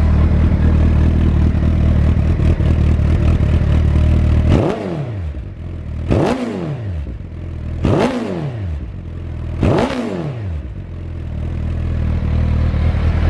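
Suzuki GSX1300R Hayabusa's inline-four engine idling through Yoshimura twin-can mufflers, then blipped four times about a second and a half apart, each rev rising sharply and falling back, before settling into a steady idle. The engine revs up cleanly with no problem.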